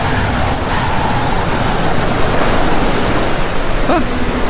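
Storm at sea: waves surging and wind rushing, a dense steady roar that builds slightly.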